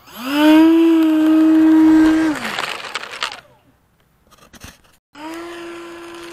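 Electric ducted fan of an RC jet (64mm, 5-blade fan on a 5100kv motor) spooling up to a steady high whine, holding about two seconds, then spooling down. About five seconds in it spools up again and holds steady while the model taxis.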